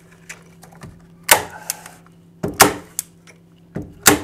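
Hand staple gun (Duo-Fast CS5000, 3/8-inch staples) firing staples through cardboard shims into a wooden stud: five sharp snaps, the last four in two quick pairs.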